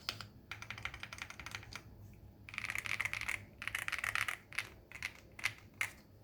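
Typing on a Xinmeng X87 mechanical keyboard with its stock switches and keycaps. A quick run of keystrokes is followed by two dense flurries of key presses, then a few single keystrokes near the end.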